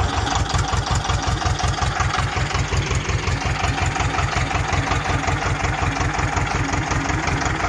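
Ursus C-330's two-cylinder diesel idling steadily through a flat fish-tail exhaust stack, with even, regular exhaust beats. On this stack it runs much quieter.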